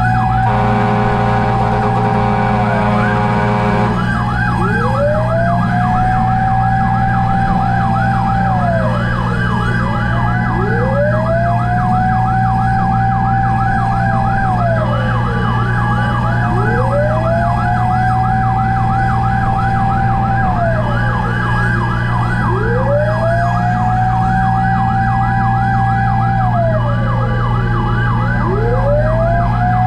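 Fire truck sirens: a slow wail rising, holding and falling about every six seconds, overlapped by a fast yelp cycling several times a second, over a steady low engine drone. A horn blast sounds for about the first four seconds.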